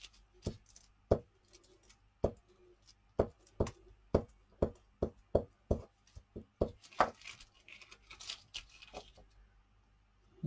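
Glue stick worked over paper butterfly cutouts on a plastic sheet on a desk: a run of irregular sharp taps and knocks, with scratchy rubbing strokes about seven to nine seconds in.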